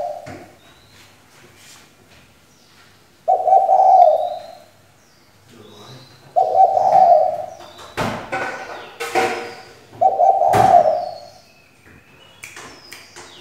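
Female spotted dove cooing: three deep coo phrases, each about a second long and roughly three seconds apart. Small birds chirp faintly in the background.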